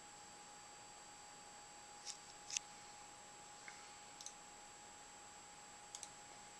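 A few faint, short computer mouse clicks, ending with a quick double click, over a faint steady electronic whine.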